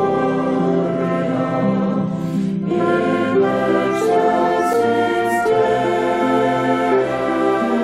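Music: a choir singing held chords, with a few short hissing consonants about halfway through.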